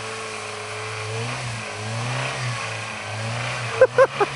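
Toyota 4x4 truck engine revving hard under load, held at high revs with the pitch wavering up and down. Two short, loud shouts break in near the end.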